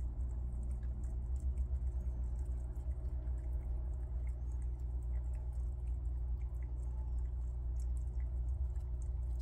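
Prairie dogs gnawing and chewing peanuts, heard as faint, irregular little crunching clicks over a steady low hum.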